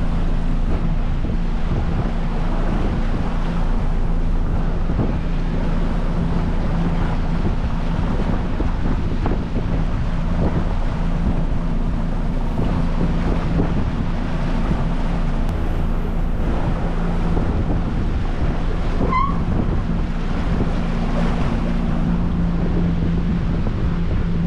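A boat's engine running with a steady hum under way, with wind buffeting the microphone and water rushing by. A brief high chirp sounds once, late on.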